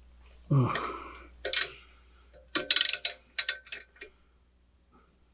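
Small socket ratchet clicking in quick runs while tightening a nut on a Tial external wastegate.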